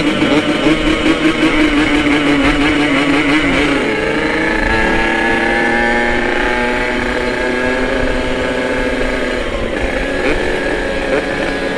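Yamaha RX-King two-stroke single-cylinder motorcycle engine under way. For the first few seconds its note wavers up and down with the throttle, then from about four seconds in it rises steadily in pitch as the bike accelerates, and the note breaks about ten seconds in.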